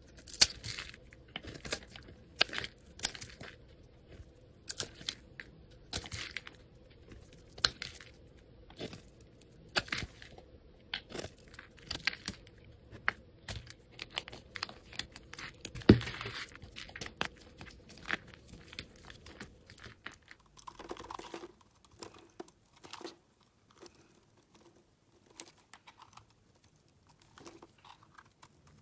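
A utility-knife blade scraping and shaving dry bar soap in a series of crisp, crunchy strokes as flakes break away, with one sharper crack about halfway through. In the last third the strokes become softer and sparser.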